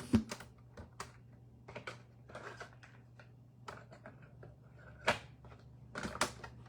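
Scattered faint clicks and taps at irregular intervals, over a steady low hum.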